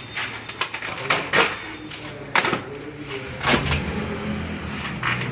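Packing around a kitchen shutter box being pulled and torn open by hand: a string of irregular sharp rips, rustles and knocks, with a low steady hum underneath from about halfway in.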